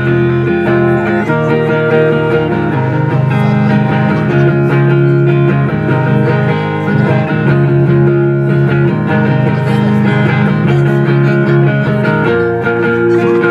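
Live rock band playing an instrumental passage without vocals: electric guitar chords over bass and drums, loud and amplified through the stage PA, with the chords changing every second or two.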